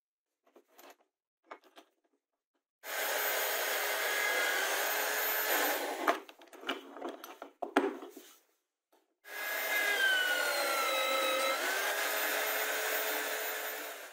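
Homemade drill press boring through plywood with a spade bit in two runs: a steady motor whine over the rasp of the bit cutting wood, its pitch dipping briefly late in the second run. Sharp knocks of the board being handled come between the runs.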